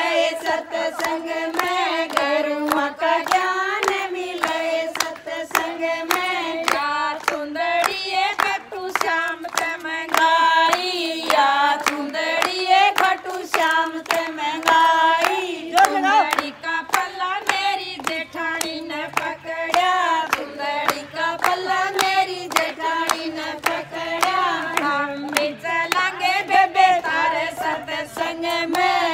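Women's voices singing a bhajan, a devotional folk song, to steady rhythmic hand clapping from the seated group.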